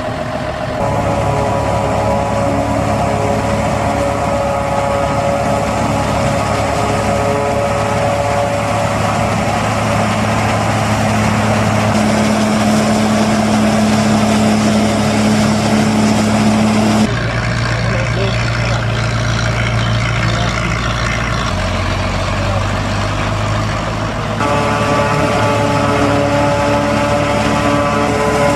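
Diesel engines of a John Deere forage harvester and its accompanying tractors running steadily under load while chopping corn, a continuous drone with steady hum tones. The sound shifts abruptly twice as the shot changes.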